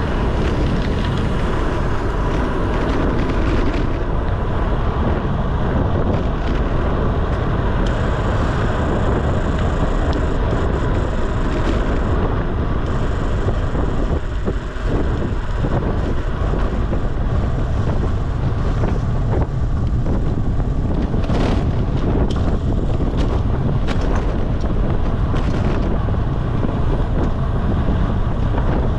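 Steady, loud wind noise on the microphone of a camera on a bicycle descending at speed, with a few short knocks and clicks from the road.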